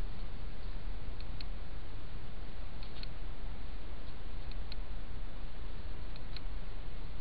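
Steady hiss of a trail camera's microphone in unattended night recording, with a pair of quick ticks repeating about every one and a half seconds.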